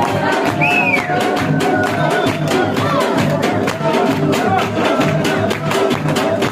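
Traditional Gilgit-Baltistan dance music: drums beating a fast, steady rhythm under a high, wavering melody line.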